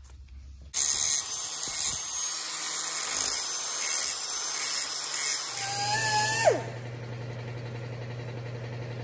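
Handheld angle grinder with a grinding wheel grinding metal. The grinding starts suddenly about a second in and runs steadily, then the motor's whine drops in pitch as it winds down, leaving a low steady hum.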